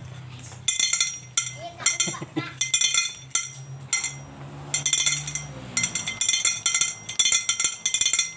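Homemade noisemaker windmill made from scrap: as the fan-blade propeller turns the shaft, metal hooks strike aluminium antenna tubes, giving runs of rapid ringing metallic clinks, gamelan-like and very noisy. The clinking starts about a second in and comes in bursts with short gaps.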